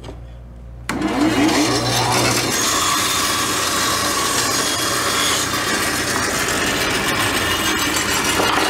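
1930s Craftsman 12-inch bandsaw (Herbert Machinery 'Snowflake') cutting a strip of wood, driven by its Dunlap motor. The blade bites into the wood suddenly about a second in, and the cutting noise then continues steadily.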